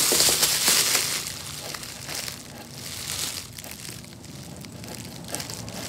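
Plastic masking sheet crinkling in the hand while a razor blade slices along the edge of thin foam, trimming a bevel. The rustle is loudest in the first second, then goes on more quietly in short patches.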